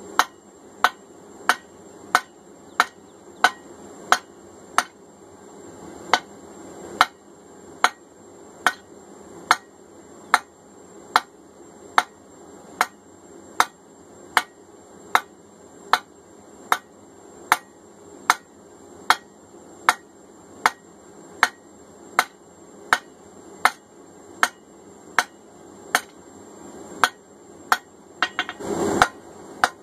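Hand hammer striking red-hot 3/4-inch rebar on a steel anvil in a steady rhythm, a little under two blows a second, drawing the bar down to a taper. A short burst of noise breaks in near the end.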